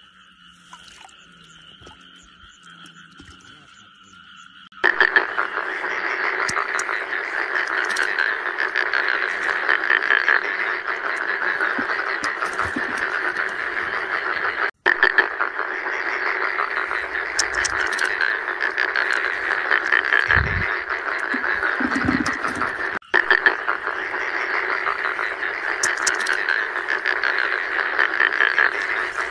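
Dense chorus of many frogs croaking rapidly and continuously. It starts abruptly about five seconds in, after a faint, steady high trill. The chorus cuts out for a moment twice, about fifteen and twenty-three seconds in.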